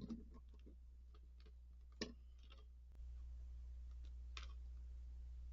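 Faint scattered clicks and taps from small keyboard parts and screws being handled during reassembly. The sharpest clicks come at the very start and about two seconds in. A low steady hum runs underneath and gets louder about three seconds in.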